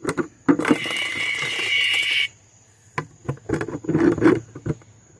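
A cicada held in the hand gives a loud buzzing distress call for about a second and a half, cutting off suddenly. Scattered clicks and rustling from the insect being handled follow.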